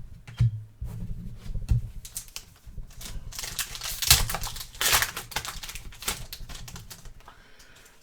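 Trading cards being handled: a dense run of clicks and crinkles as cards are slid and flicked, with the crackle of packaging, busiest about halfway through.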